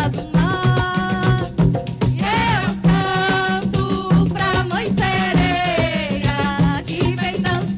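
Live Brazilian music: a sung melody over a steady, repeating drum beat with a shaker rattling along.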